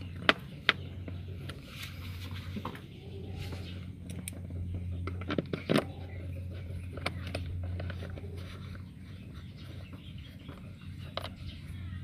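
A hand screwdriver turning screws into a motorcycle's plastic air filter box cover: scattered sharp clicks and light scrapes as the tool meets the screw heads and plastic, over a steady low hum. Two clicks come close together right at the start, and a cluster comes about halfway through.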